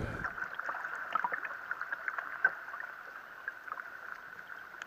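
Underwater sound picked up by a submerged camera: a steady, thin high hum with many small scattered clicks and pops of water and bubbles.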